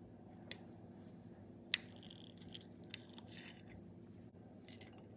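Metal knife and fork cutting a boiled varenik on a ceramic plate: a few faint clicks of cutlery on the plate, the sharpest nearly two seconds in, and short scrapes as the blade saws through the dough, over a low steady hum.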